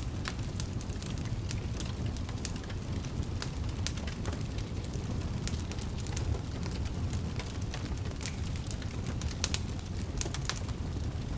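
Wood fire burning in a fireplace: a steady low rumble of the flames with irregular sharp crackles and pops scattered throughout.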